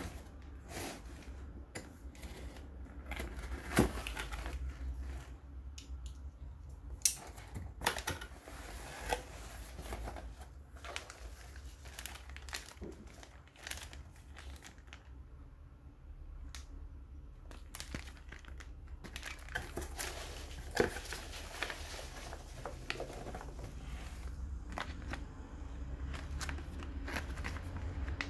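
A cardboard box is cut open and unpacked: plastic bags and foam packing peanuts crinkle and rustle as they are handled, with scattered sharp taps and clicks. A low steady hum runs underneath.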